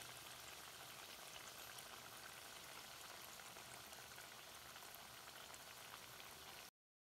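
Banana flower fritters deep-frying in hot oil: a faint, steady sizzle with tiny scattered crackles, cutting off abruptly near the end.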